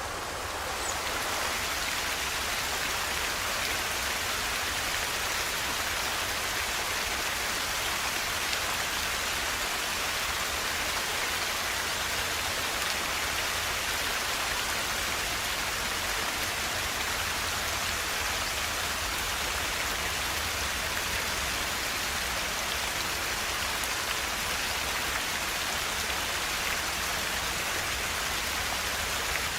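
Fast-flowing river water rushing steadily, a bright even hiss of water. It gets a little louder and brighter about a second in, then holds.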